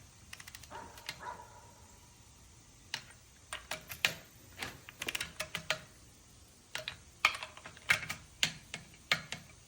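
Torque wrench set to 45 ft-lb, ratcheting in short bursts of sharp metallic clicks as bolts are tightened, with a brief metallic ring about a second in.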